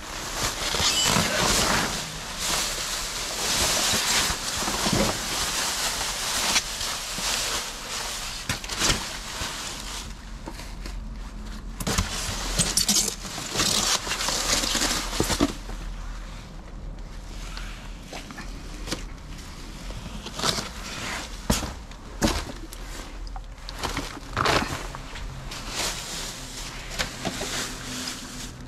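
Rummaging through dumpster contents: plastic bags and packaging rustling and crinkling, heaviest in the first half, with scattered knocks and thumps, over a steady low hum.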